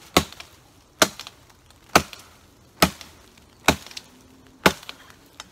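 FiveJoy survival shovel's sharpened steel head chopping into a log: six sharp strikes, a little under a second apart.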